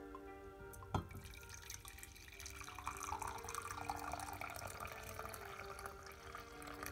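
A light knock about a second in, then liquid poured in a thin stream into a large ceramic mug, a steady splashing that swells in the middle and keeps going to the end.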